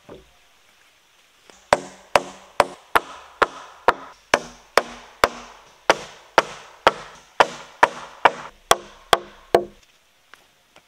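Hammer blows on the wooden joists of a timber floor frame, about eighteen strikes at a steady pace of roughly two a second, each ringing briefly in the timber; they start after a second and a half and stop near the end.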